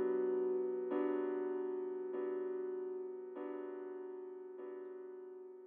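Closing jingle music: a soft keyboard chord struck again about every 1.2 seconds, fading out.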